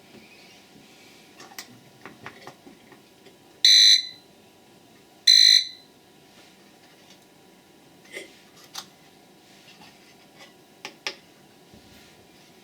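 A cheap digital alarm clock's buzzer gives two short, shrill beeps about a second and a half apart, with faint clicks around them.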